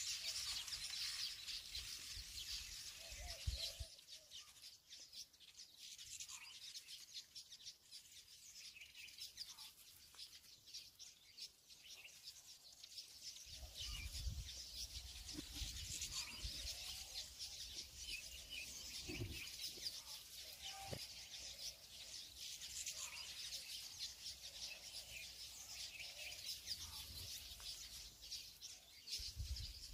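Many small birds chirping continuously in a dense chatter, with a few low bumps from the board and paper being handled.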